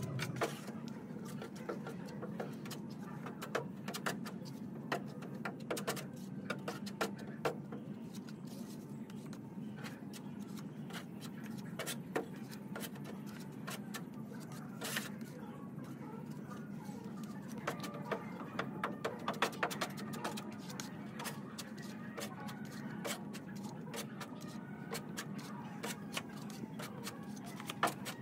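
Hand sanding of body filler on a steel car bonnet with a sanding block: many short, scratchy strokes over a steady low hum.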